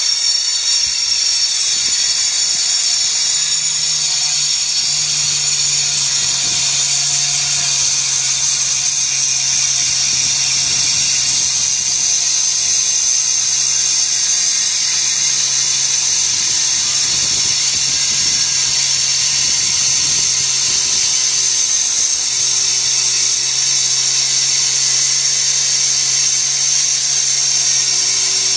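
Handheld 4-inch stone cutter with a thin tungsten carbide blade sawing through India Black G20 granite. It gives a loud, steady, high-pitched grinding whine over the hum of the motor.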